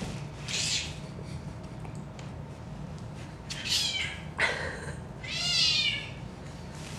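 Cat on catnip meowing: one drawn-out meow about five and a half seconds in, after a few short hissy sounds and a sharp tap.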